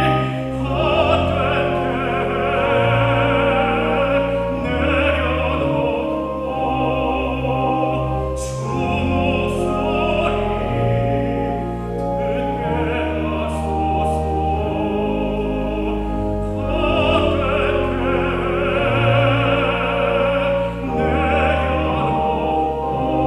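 A classical-style solo voice singing a sacred song in long held notes with vibrato, over a steady instrumental accompaniment.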